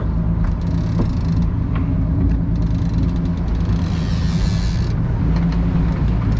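A 48-foot fishing boat's engine running steadily, a low even hum, with a spell of hiss about halfway through.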